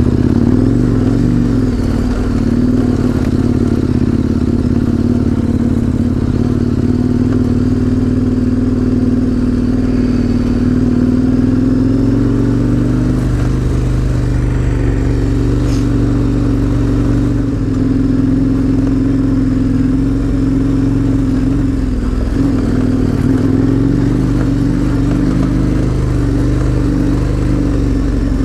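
Adventure motorcycle engine running at a steady cruise while riding on a dirt road, its pitch shifting a little now and then with the throttle.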